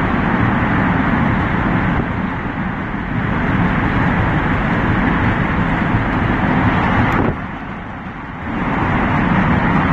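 Steady road and engine noise inside a car driving through a road tunnel. About seven seconds in it drops off briefly for about a second, then returns.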